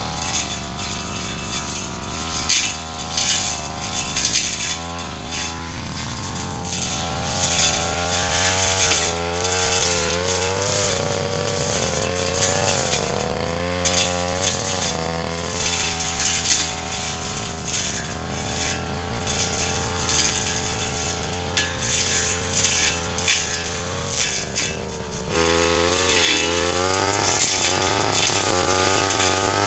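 Petrol brush cutter running and cutting through grass and ferns, its engine pitch rising and falling as the throttle and load change. It gets louder near the end.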